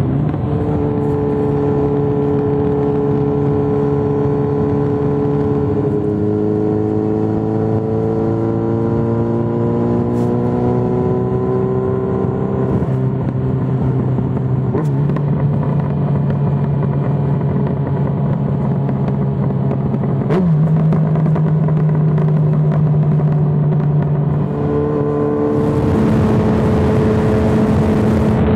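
Yamaha XJ6N's inline-four engine through an Arrow full exhaust, running at steady revs. The pitch climbs slowly for several seconds, holds, then steps to a new level about two-thirds in and shifts again near the end.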